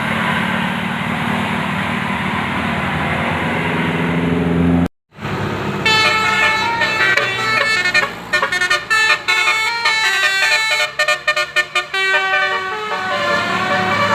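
Bus engine and road noise, then, after a brief cut, a multi-tone telolet bus horn playing a quick tune in short stop-start notes.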